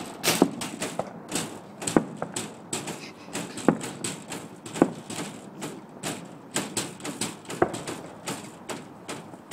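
Aerial fireworks bursting and crackling: a rapid irregular run of sharp pops, several a second, with a few louder bangs among them.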